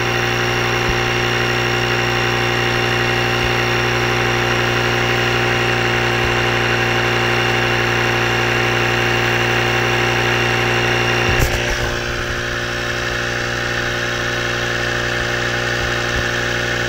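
Ryobi One+ cordless inflator's battery-powered compressor running steadily, pumping air into a boat speedometer's pitot line to blow out a blockage while the pressure builds. About eleven seconds in there is a brief knock and the pitch of the running changes a little.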